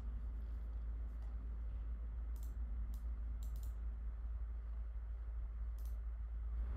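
About six sparse clicks from computer keys, some in quick pairs, over a steady low hum.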